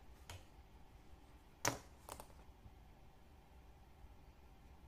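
A few sharp clicks and taps as leather pieces and small hand tools are handled on a cutting mat: a light tap just after the start, the loudest click about a second and a half in, and a weaker double tap just after it.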